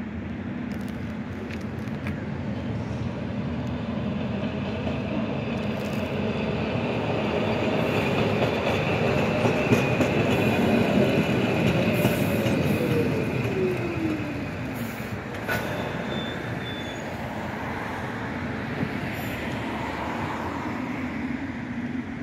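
Blue ZET street tram rolling past on street rails, with a steady rumble of wheels on track that grows to its loudest about halfway through. As it passes, a whine drops in pitch. A few light clatters are heard as it rolls on.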